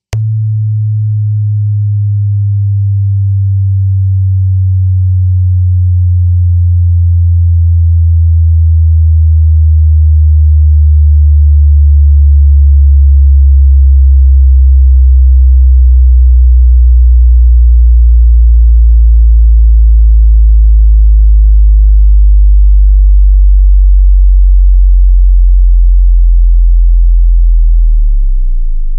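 A deep subwoofer bass test tone that slides slowly and steadily down in pitch for nearly half a minute. It grows a little louder as it falls, picks up faint higher overtones in the middle, and stops abruptly.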